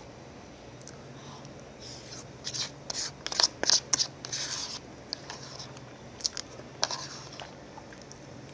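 A spoon scraping and clicking against a disposable bowl as rice is scooped up and eaten, in two short clusters, the busier one near the middle.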